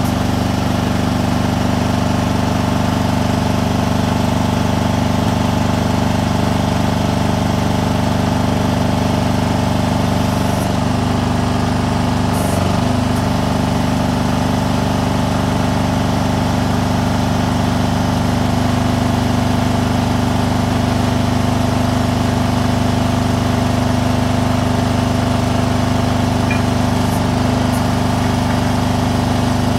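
An engine running steadily at an even pitch, a constant low hum that wavers briefly about twelve seconds in.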